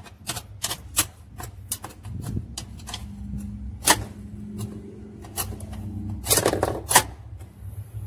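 Screwdriver scraping and tapping at caked soap scum and scale around a washing machine's basket hub and transmission shaft: a fast run of sharp metal clicks in the first two seconds, then scattered clicks, with two louder knocks near the end.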